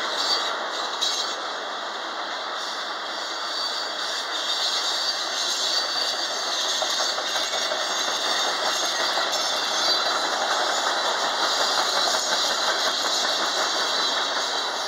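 Freight cars of a BNSF mixed manifest train rolling past: a steady, unbroken noise of steel wheels on rail with the rattle of tank cars and boxcars.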